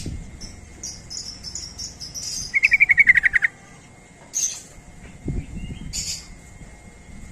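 Yellow-vented bulbul (trucukan) singing. Thin, high chirping notes lead into a fast chattering run of about ten notes lasting about a second, which is the loudest part. Two short high calls follow near the end.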